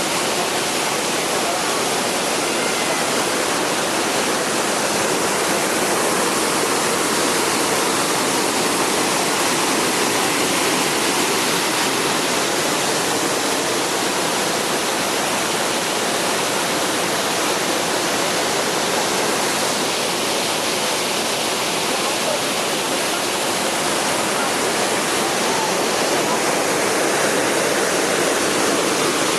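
Waterfall: steady, loud rush of falling water.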